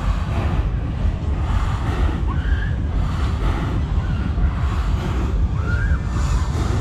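Wind rushing and buffeting on the camera's microphone as the booster ride's gondola swings through the air, a steady loud low rumble. A few faint, brief cries rise and fall above it.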